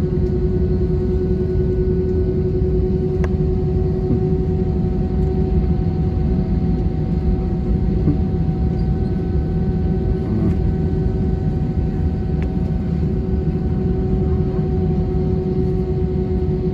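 Airbus A320 cabin noise in flight: the jet engines' steady drone with a constant hum over a heavy low rumble.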